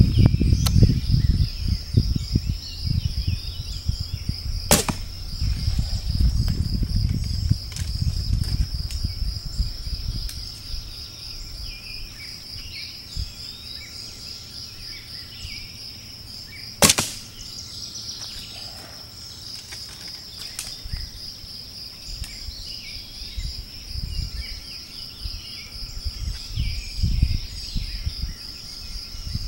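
A recurve bow shooting twice: each shot a single sharp snap of the released bowstring, about five seconds in and again some twelve seconds later, the second louder. Under it, insects trill steadily in a pulsing high chorus, with low wind rumble over the first several seconds.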